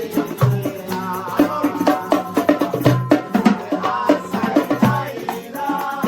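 Background music with dense percussion hits and a wavering melody line over it.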